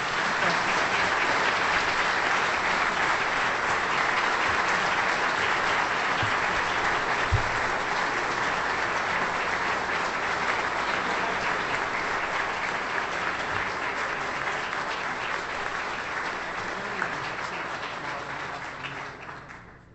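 Audience applauding steadily for about twenty seconds, dying away near the end.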